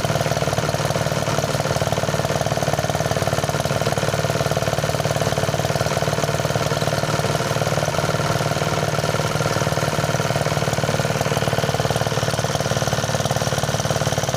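Engine-driven rice thresher running steadily, a continuous, even machine noise with a fast pulse.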